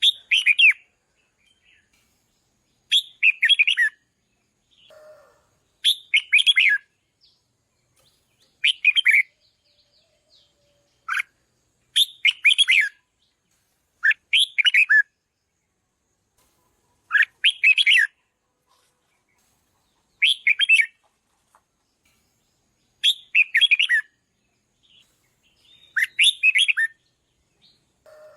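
Red-whiskered bulbul singing: short, bright warbled phrases repeated about every three seconds, with silence between them.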